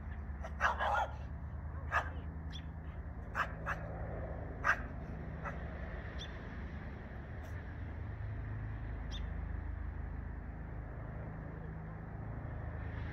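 A Shiba Inu barking a few short times in the first five seconds, loudest about a second in, over a steady low hum.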